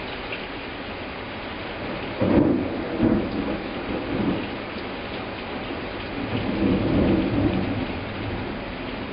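Heavy downpour hissing steadily, with a sudden clap of thunder about two seconds in that rolls on in several rumbles, then swells into a second long rumble later on.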